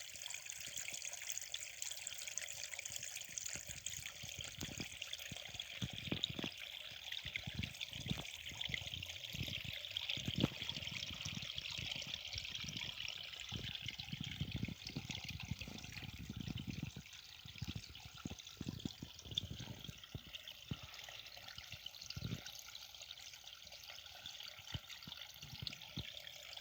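Small forest stream trickling steadily, with irregular low thuds scattered through the middle of the sound.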